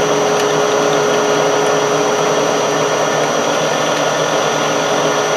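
South Bend lathe spindle and chuck spinning at top speed, driven by a three-phase motor on a Lenze SMVector vector drive: a steady mechanical whir with a thin, steady high-pitched whine, which is normal for this vector drive.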